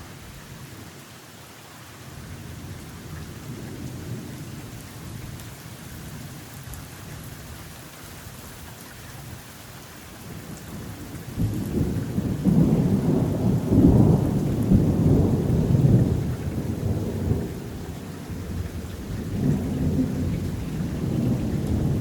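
Steady rain, then about halfway through a long low rumble of thunder that swells to a peak, eases off, and rolls up again near the end.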